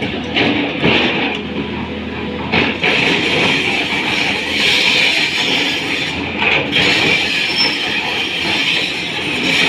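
Tata Hitachi 200 excavator at work: steady machine noise with a strong high band, broken by a few sharp metallic knocks.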